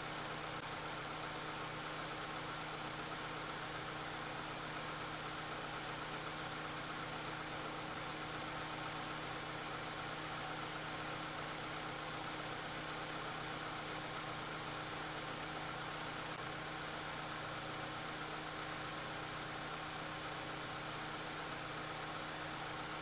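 First-generation Honda CR-V engine idling, a steady, even hum.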